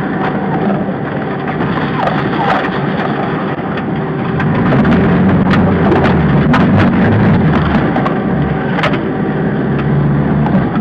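A car engine running under load, heard from inside the cabin, as it drives off-road through tall dry weeds, with repeated sharp cracks and knocks as the vehicle pushes through the brush and over the rough track. The engine gets louder about four and a half seconds in.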